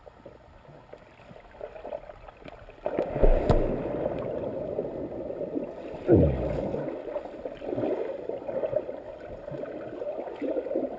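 Pool water heard from underwater: quiet at first, then about three seconds in a person plunges in with a deep thud, and a steady rumble of bubbles and churning water follows, with a second thud about six seconds in.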